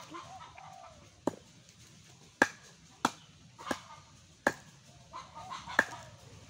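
Machete chopping gayam (Tahitian chestnut) fruits on a wooden block: six sharp chops at uneven intervals.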